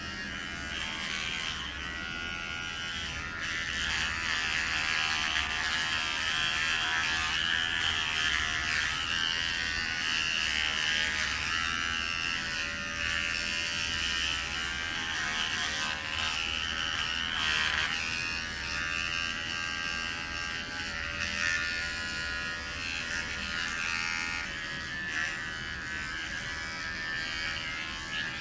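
Cordless electric pet grooming clipper running steadily while trimming the hair on a dog's paw, a steady motor buzz whose pitch wavers slightly.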